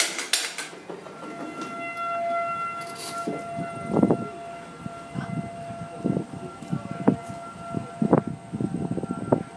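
Federal Signal 2001 outdoor warning siren sounding a steady tone in its monthly test, swelling and fading as it carries. Frequent low knocks and rumbles sound over it, with a sharp knock at the very start.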